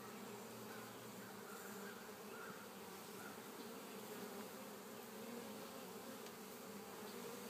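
Honeybees buzzing steadily around an opened hive during a frame inspection.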